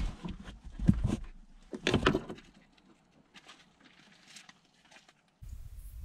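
Knocks, thumps and rustling from inside a parked car as a dog and a person climb out through the open driver's door, loudest in two short clusters in the first couple of seconds.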